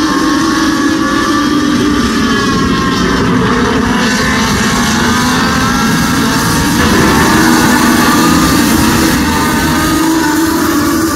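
A pack of Legends race cars lapping an oval, their Yamaha motorcycle engines revving up and down as they run past in traffic.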